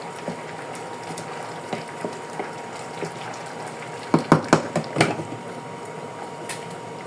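A pot of rice bubbling as it simmers, with a few sharp clanks of metal cookware about four to five seconds in.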